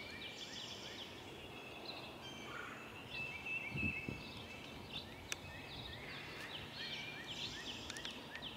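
Wild songbirds singing and chirping: a steady chorus of short, high chirps and trills from several birds. A couple of low thuds come about four seconds in, and a single sharp click follows a second later.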